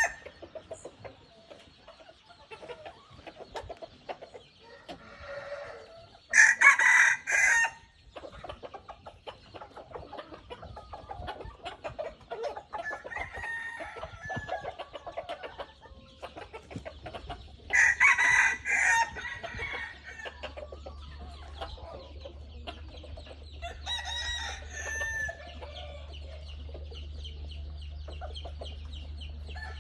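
Red junglefowl roosters crowing: three crows of about a second and a half each, about 6, 18 and 24 seconds in, the third fainter. Between the crows there are faint scattered sounds, and in the second half a low steady hum comes in.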